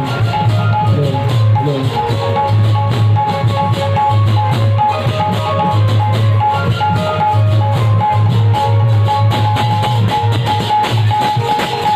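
A troupe of drummers playing loud, fast rhythms on stick-beaten drums slung at the waist. A repeating high note sounds over the drumming.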